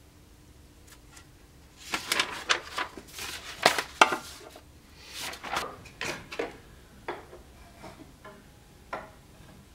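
Sheets of paper rustling and sliding over a wooden board, mixed with sharp clacks of a steel adjustable square being picked up and knocked on the wood. The clacks are loudest around four seconds in, and a few lighter knocks and clicks follow.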